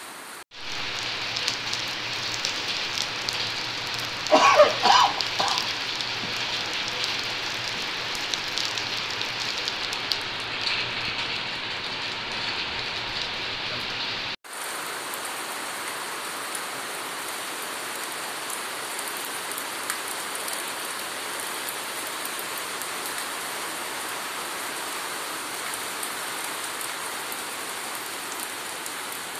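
Steady rain falling on wet paving and foliage, as two separate recordings joined by a sudden cut about fourteen seconds in. A brief louder sound stands out about four seconds in.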